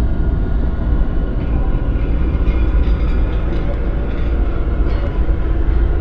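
A loud, steady low rumble with faint higher clicking in the middle.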